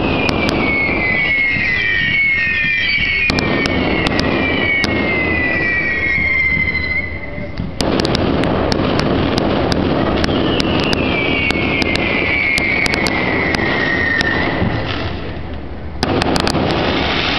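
Fireworks going off: several whistles falling in pitch overlap in two runs, one at the start and another about ten seconds in, over continuous burst noise with many sharp cracks.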